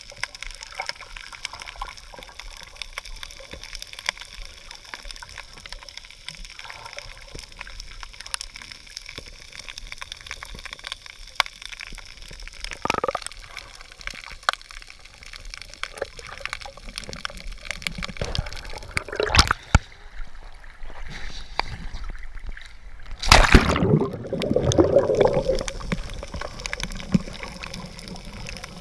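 Underwater sound: a steady crackle of small clicks, broken by a few gurgling bursts of bubbles, the loudest about four-fifths of the way in.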